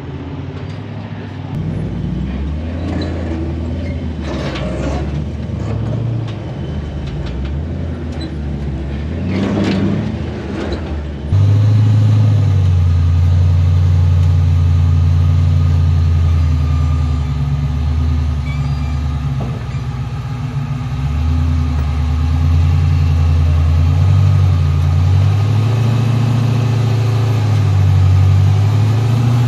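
Engines of full-size 4x4 trucks running at low revs and rising and falling as they crawl the trail. The engine sound becomes louder and steadier about eleven seconds in.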